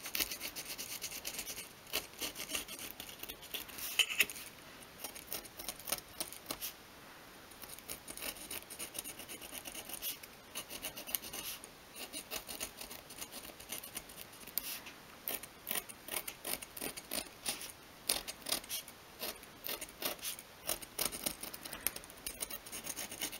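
Pointed metal scribe scratching along a pencil line on a thin sheet of obeche softwood, lightly scoring the outline in many short strokes, with a brief pause partway through.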